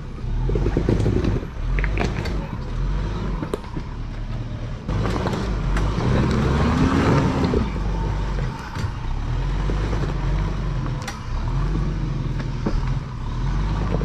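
Mitsubishi Pajero Sport's diesel engine working off-road, its revs rising and falling as it pulls, with one clear rev up and back down about halfway through. Occasional knocks and clunks sound over the engine.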